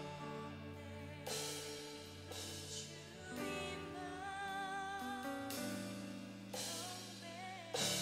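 Live worship band playing, with drums and several cymbal crashes under a woman singing long, wavering notes.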